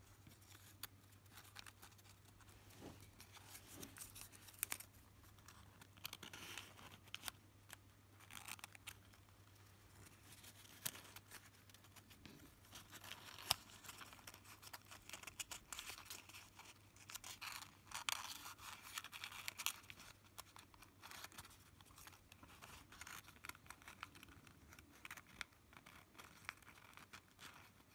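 Folded origami paper units rustling and crinkling quietly as they are handled and slotted together, with scattered small clicks and short crinkles.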